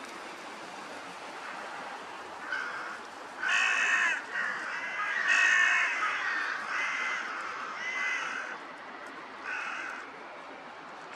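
Hooded crows cawing: a run of about eight caws starting a couple of seconds in, loudest around the middle, over a steady background hiss.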